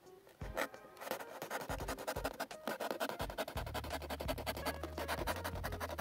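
Snap-off utility knife sawing through corrugated cardboard in rapid rasping strokes, starting about a second in, over background music.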